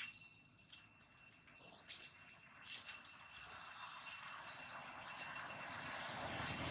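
Insects chirping in a fast, even pulse over a steady high buzz. A rustling hiss grows from about three seconds in.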